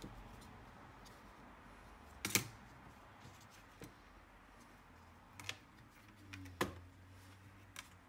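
Scattered light clicks and knocks of plastic and metal laptop parts being handled as the motherboard is worked loose and lifted from the plastic base. The loudest knock comes about two seconds in, and four fainter ones follow.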